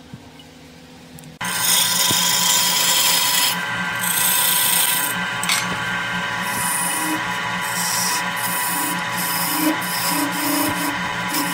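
A faint lathe motor hum, then about a second and a half in a hand-held turning chisel bites into a spinning redwood vase blank on a wood lathe. It makes a loud, steady scraping cut, with a few short dips in the hiss as the tool eases off.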